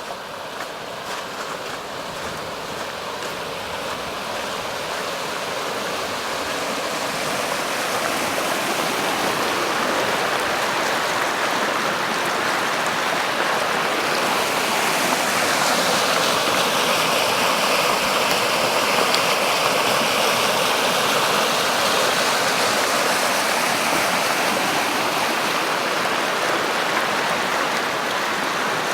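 Floodwater rushing down a normally dry riverbed (rambla): a steady, loud rush of moving water that grows louder over the first ten seconds or so and then holds steady.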